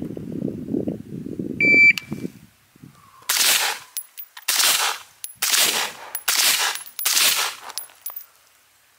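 A low rustle, then a shot timer's single short high beep about two seconds in, followed by five gunshots about a second apart, each ringing briefly.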